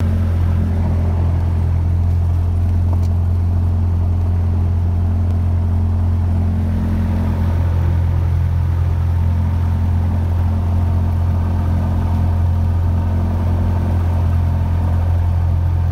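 Single-engine Cessna's engine and propeller running steadily, a constant low drone heard from inside the cabin.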